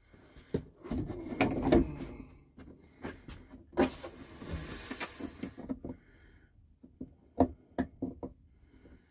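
Plastic RV air-conditioner ceiling shroud being fitted back into place by hand: rubbing and scraping against the ceiling, with scattered knocks and clicks. The longest scrape comes about four seconds in and lasts nearly two seconds.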